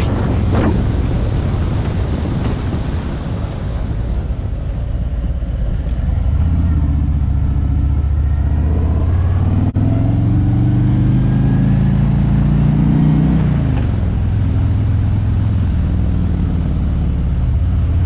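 Wind rumbling over a mic tucked under a hoodie on a moving motorcycle, with the motorcycle's engine pulling underneath. The engine pitch climbs from about six seconds in to about thirteen and then drops away. A single sharp click comes about ten seconds in.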